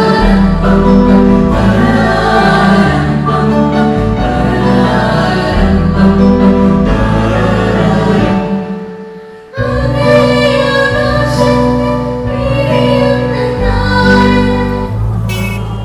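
Christian devotional song sung by female voices into microphones over a church band with electric bass and guitar. The music fades down about eight seconds in and comes back in suddenly a second later.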